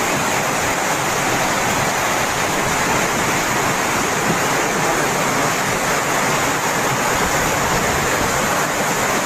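Floodwater rushing in a fast torrent, a loud steady noise of moving water.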